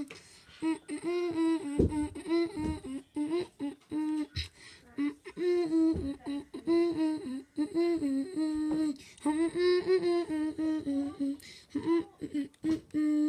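A person humming a wordless tune in short phrases, with a few dull thumps along the way.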